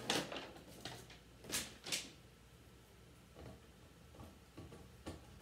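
Paper instruction sheets rustling as they are handled, in several short bursts. The loudest come right at the start and twice about one and a half to two seconds in, with fainter handling noises after that.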